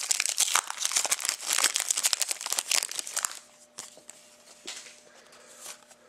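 Crinkling and tearing of a trading card pack wrapper being ripped open by hand, a dense crackle for about three seconds, then quieter with a few light clicks as the cards are handled.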